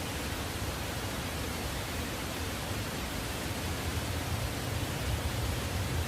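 Steady rushing of a mountain valley stream, an even noise that does not change, with a low rumble underneath.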